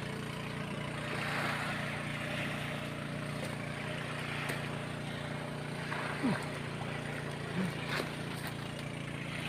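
Steady low drone of a distant engine, with a few faint short chirps and ticks a little past the middle.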